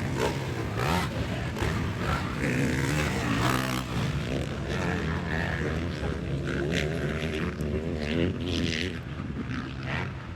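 Motocross dirt bike engines racing, revving up and dropping in pitch again and again through gear changes.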